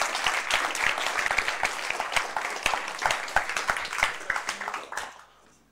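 Audience applauding, a dense patter of many hands clapping that thins out and dies away near the end.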